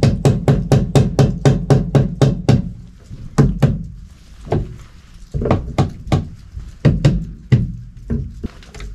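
Hammer striking nails into wooden 2x framing: a quick run of blows at about five a second, then slower, spaced single blows from about three seconds in.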